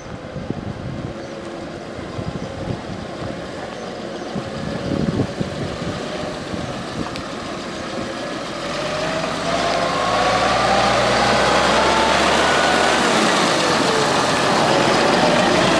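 Valtra tractor's diesel engine running as the tractor drives up and passes close by, growing louder about halfway through as the engine note rises under acceleration.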